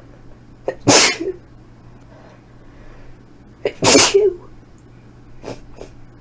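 A person sneezing twice, induced sneezes from a nose irritated by dust: one about a second in and a second, equally loud one about four seconds in. Two short, faint sounds follow near the end.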